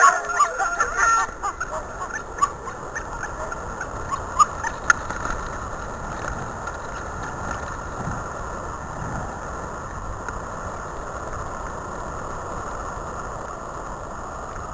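Siberian huskies yelping and howling with excitement at the start, falling quiet about a second in as the team takes off. Then a steady rumbling noise of the run along a dirt forest track, with a few sharp clicks early on.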